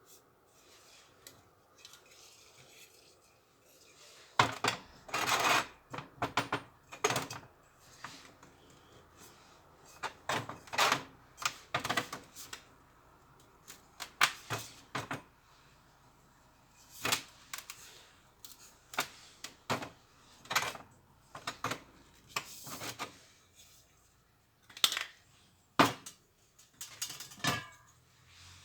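Irregular clicks, taps and scrapes of small hard parts being handled and fitted together, in short clusters with brief pauses between. It starts about four seconds in.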